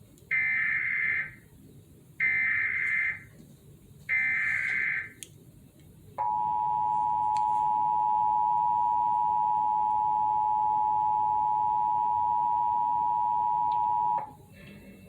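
Emergency Alert System tones: three one-second bursts of the SAME digital header data, then the steady two-tone EAS attention signal (853 and 960 Hz) held for about eight seconds and cutting off abruptly.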